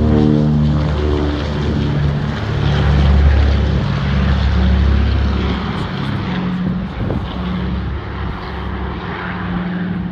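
The four Pratt & Whitney R-1830 radial engines of a B-24 Liberator bomber at full takeoff power as it lifts off and climbs away. They make a deep propeller drone with a wavering pitch, loudest a few seconds in and fading gradually toward the end.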